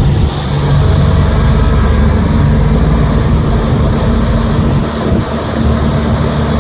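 Heavy diesel engine running steadily with a loud low drone, from an excavator or dump truck working at an earth-loading site.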